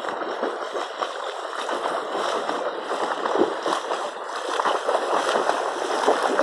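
Water splashing and churning from a swimmer's arm strokes and kicks, a steady run of small splashes that grows louder as the swimmer comes close.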